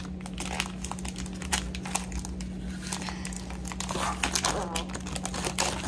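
Thin clear plastic packaging bag crinkling and crackling in rapid little snaps as it is pulled at by hand to open it, over a steady low hum.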